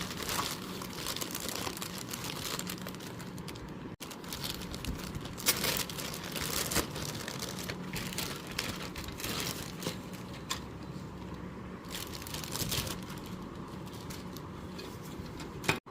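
Packaging crinkling and rustling in irregular bursts as it is cut and torn open.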